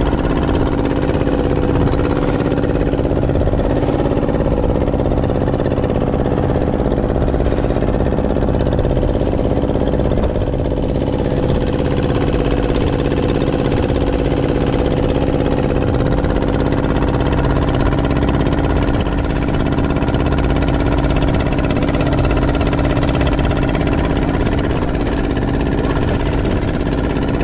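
Small fishing boat's inboard engine running steadily while the boat is under way, an even, unchanging drone.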